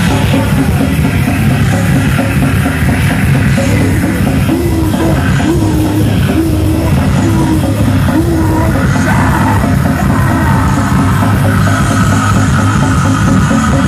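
Live crust punk band playing at full volume: distorted guitars and drums, heard at close range from within the crowd.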